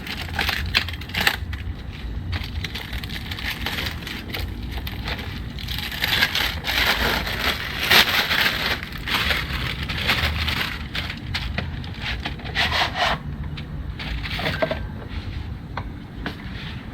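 Packaging of a new torque wrench being unwrapped: irregular crinkling, tearing and crackling with scattered clicks and knocks, busiest about halfway through.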